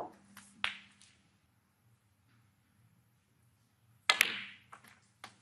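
Snooker balls clicking as shots are played: the cue tip strikes the cue ball and it hits an object ball. There are two sharp clicks within the first second and another close pair about four seconds in, followed by a few lighter ball knocks.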